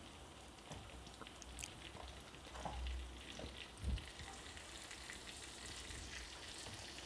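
Chopped onion frying in melted butter in a pan: a faint, steady sizzle with scattered small crackles, and a couple of soft low knocks near the middle.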